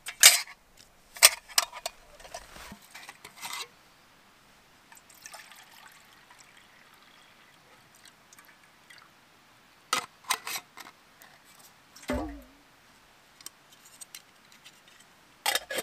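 Metal canteen cup clinking against the canteen and carrier as it is pulled out and set down, then water poured quietly from a metal canteen into the cup. A few more metal clicks follow, a short falling squeal just after the middle, and clinks near the end.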